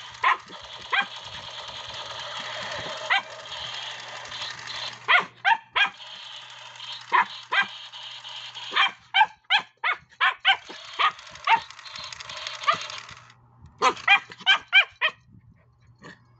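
Border Terrier barking in short, sharp barks at a lit-up toy gun, whose electronic sound effect plays steadily underneath, breaking briefly twice and cutting off about 13 seconds in. A quick run of barks follows near the end.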